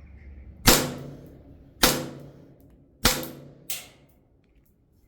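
Three shots from a CO2 blowback airsoft pistol, an STI 2011 Combat Master replica, about a second apart, each a sharp crack with a short decaying tail, followed by a fainter knock.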